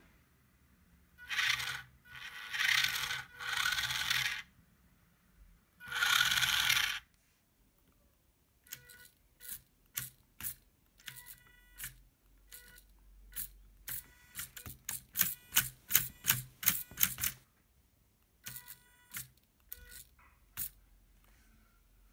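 Small electric motors and plastic gearboxes of a 1:18 toy RC car whirring in bursts under joystick control: four longer runs, then many quick back-and-forth strokes of the original steering motor driven with a PWM signal, several carrying a faint whine.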